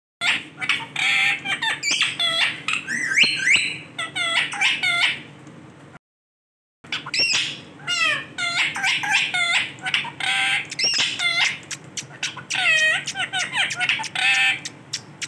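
Male ringneck parrot chattering and squawking: quick runs of short, shrill, pitch-bending calls, broken by a brief total silence about six seconds in.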